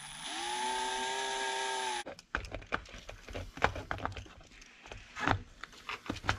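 Cordless electric screwdriver running steadily for about two seconds as it drives a link screw into an RC truck's portal axle, then stopping abruptly. After it come scattered light clicks and knocks of parts being handled as a wheel is fitted onto the hub.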